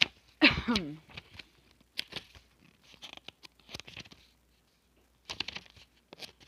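Pages of a card deck's guidebook being turned and handled: short papery rustles and light taps, with a brief murmured voice sound about half a second in.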